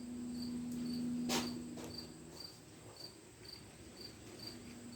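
A cricket chirping steadily, about two chirps a second, over a low hum that stops about two seconds in. There is a single sharp click about a second and a half in.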